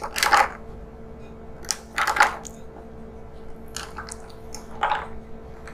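Ice cubes clinking against the glass in a tall tumbler as a bar spoon lifts and stirs them, with a handful of short clinks about a second apart.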